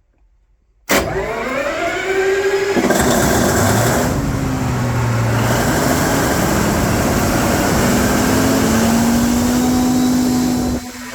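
Mitsubishi S12R V12 diesel engine of a large generator set starting up: a sudden start about a second in, a whine rising in pitch for about two seconds as it spins up, then running steadily and loud.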